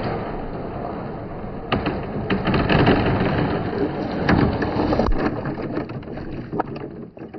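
Many marbles rolling and clacking along a wooden marble run: a steady rumble full of quick clicks that grows busiest in the middle, then thins to scattered clicks near the end.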